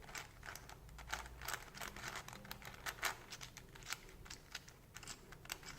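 Faint, irregular plastic clicking of a Cube4You 3x3x7 cuboid puzzle's layers being turned by hand.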